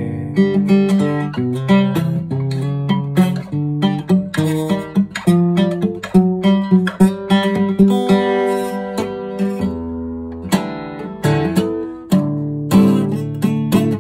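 Acoustic guitar played solo: an instrumental passage of plucked notes and chords.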